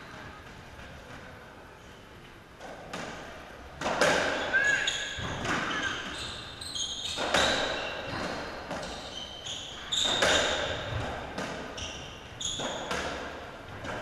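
A racketball rally on an enclosed squash court: the ball cracks off the rackets and the walls again and again, each hit echoing in the court, starting about three seconds in. Short high squeaks, typical of shoes on the court floor, come between the hits.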